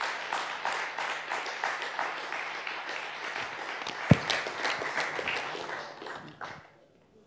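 Audience applauding, dying away near the end. About four seconds in, a single loud thump close to the microphone as a stack of paper sheets is knocked upright on the table to square it.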